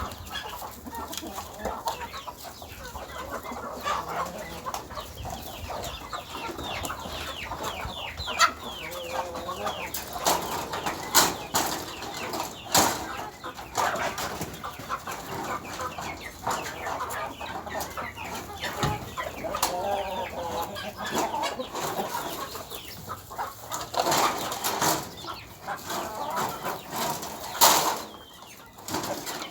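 Chickens clucking and calling around feed, with many short, quick calls and scattered sharp clicks and knocks; the loudest knock comes near the end.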